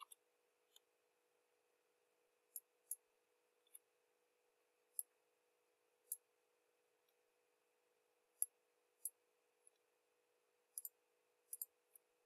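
Computer mouse clicking at irregular intervals, about fifteen sharp clicks, some in quick pairs, while lines are selected and deleted in CAD software. A faint steady hum lies underneath.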